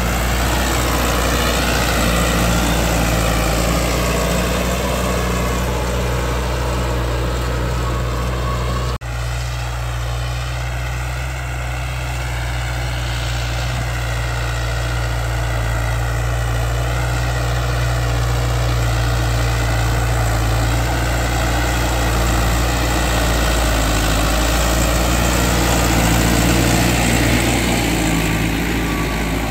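YTO 604 4x4 tractor's diesel engine running steadily under load as it pulls a subsoiler plough through the ground.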